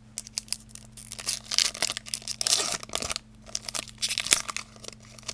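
Foil wrapper of a Pokémon trading card booster pack being torn open and crinkled by hand: a run of irregular crackles and rips.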